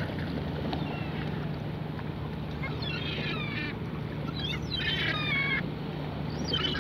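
Gulls calling over the water: short series of harsh calls about two and a half seconds in, again about a second later and once more near the end, over a steady low hum and a wash of wind and water noise.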